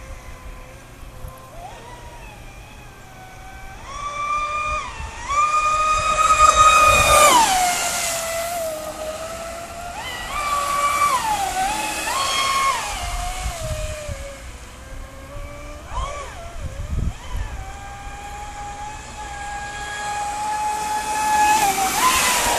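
Traxxas Spartan RC speedboat's brushless electric motor whining on 6S LiPo power, its pitch rising and falling as the throttle is opened and eased off, loudest for a few seconds about a quarter of the way in.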